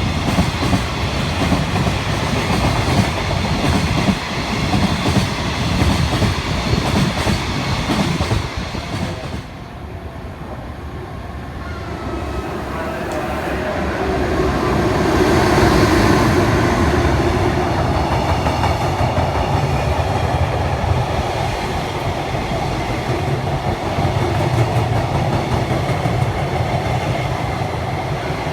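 Freight train of container wagons passing close by, wheels clattering over the rail joints. About ten seconds in the sound drops, then another train builds up, loudest a few seconds later, and rolls on past.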